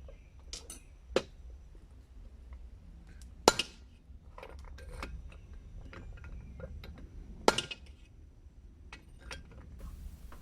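Hammer striking steel at the anvil in irregular, widely spaced blows, three loud ringing strikes among lighter metal clinks and tool knocks. A low steady hum runs underneath.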